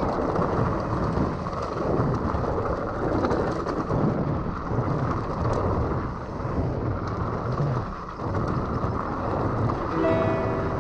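Rumbling noise of a mountain bike being ridden over a rocky gravel track: tyres crunching on stones, the bike rattling, and wind buffeting the action camera's microphone.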